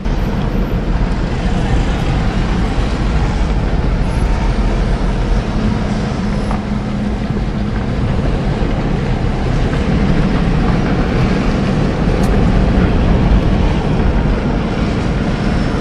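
Steady engine and road noise of a moving car, heard from inside the cabin.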